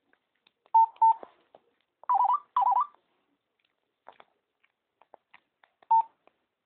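Nokia X2-02 mobile phone's keypad tones: two short beeps about a second in, then two short warbling tones, and one more short beep near the end, with faint key clicks between.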